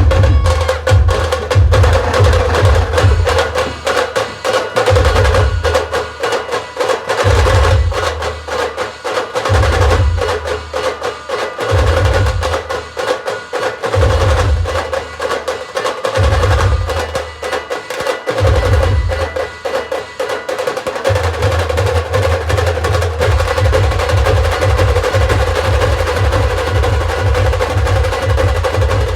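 Khandeshi band drumming: dhol, tasha and timki drums playing dense, fast strokes over a steady held melodic tone. Deep drum beats come in repeated bursts about every two seconds, then run without break in the last third.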